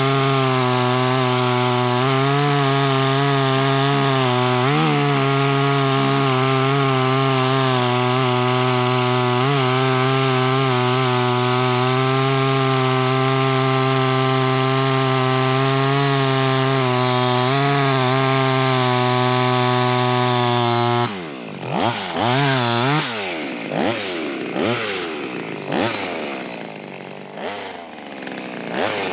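Small clone chainsaw's two-stroke engine running steadily at high revs while cutting through a tree. About two-thirds of the way through, the engine suddenly drops back, then is revved up and down several times in quick bursts.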